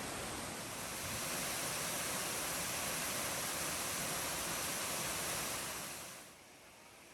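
Steady rushing of a waterfall, an even hiss of falling water that drops away about six seconds in.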